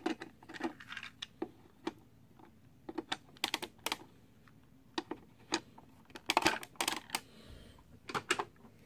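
Hard plastic toy parts clicking and tapping as an MP-10 Optimus Prime figure's Roller vehicle and trailer are handled and set down on a tabletop. Scattered sharp clicks come in short clusters, busiest a little past the middle.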